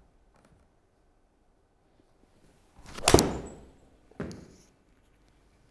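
A 7-iron striking a golf ball off a hitting mat: one loud, sharp, solid strike about three seconds in, with a short fading tail. A softer thud follows about a second later.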